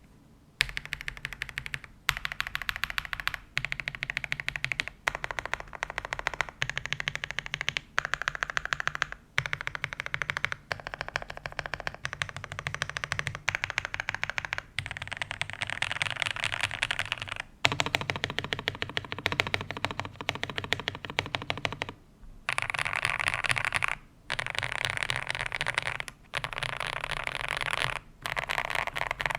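Typing on an Ajazz AK820 Pro mechanical keyboard with lubed KTT Kang White linear switches and cherry-profile keycaps. The keystrokes come in quick runs of rapid clacks, broken every second or two by short pauses.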